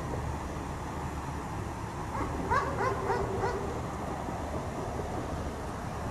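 Dog barking: a quick run of about five short barks a couple of seconds in, over a steady low rumble.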